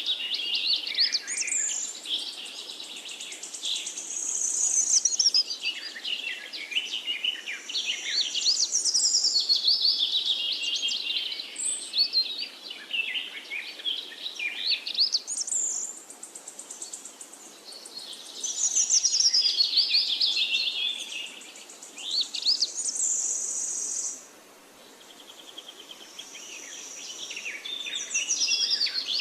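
Birdsong: phrases of quick, high chirping and warbling notes that sweep up and down, repeating every few seconds with short pauses between, over a faint steady background hiss.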